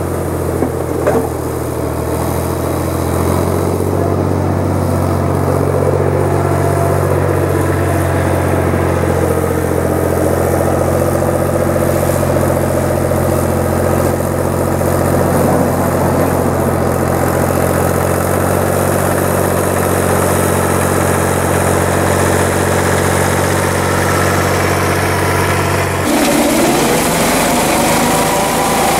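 Long 510 tractor engine running steadily under load as it pulls a box blade over a gravel driveway. About 26 s in the sound changes abruptly to a higher, lighter engine note.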